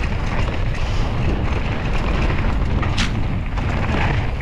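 Mountain bike descending fast over a loose rocky dirt trail: steady wind rumble on the bike-mounted camera's microphone over the tyres rolling and rattling on gravel, with one sharp knock about three seconds in.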